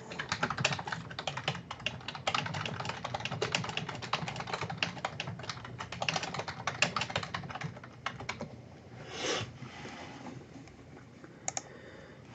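Typing on a computer keyboard: a rapid run of key clicks that stops about eight seconds in, followed a second later by one brief knock.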